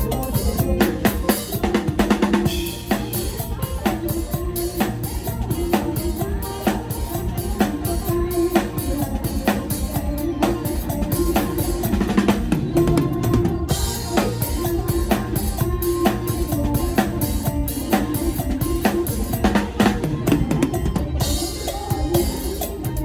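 Drum kit played in a busy, driving groove of kick drum, snare and rimshots, over a mor lam band's backing with bass, in a lam phloen rhythm.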